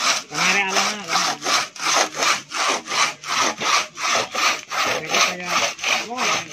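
Long manual saw worked back and forth by two people, cutting through a coconut palm trunk: steady rasping strokes, about two a second.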